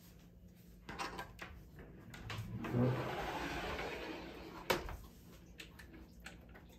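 Tall wooden cabinet doors being opened: a few light clicks, a rushing movement lasting about two seconds, then one sharp click.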